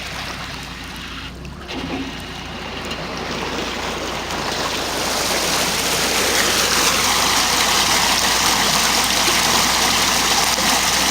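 Rushing, gurgling water, swelling about four seconds in and then holding steady.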